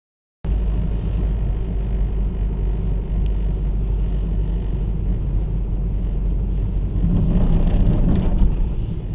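Steady low rumble of a car being driven, heard from inside the cabin: engine and road noise. It cuts in suddenly about half a second in and swells a little near the end.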